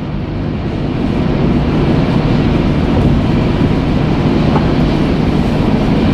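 Steady low road and engine rumble inside a moving car's cabin, growing slightly louder over the first couple of seconds and then holding.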